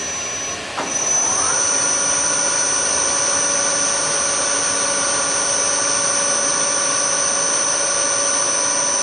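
Milling machine spindle switched on with a click about a second in, its whine rising briefly and then settling into a steady high-pitched running tone.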